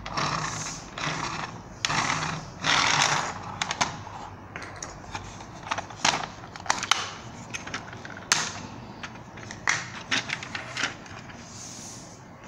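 Plastic Thunder Lynx toy vehicle being handled: a few seconds of rubbing and scraping, then a scattered run of sharp plastic clicks and snaps as its parts are worked.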